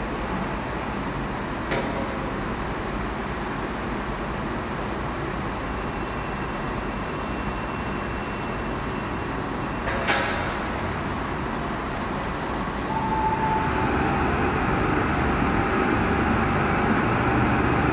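Textile mill machinery running: a steady mechanical din, with a sharp click about two seconds in and a louder knock about ten seconds in. The din grows louder from about thirteen seconds on.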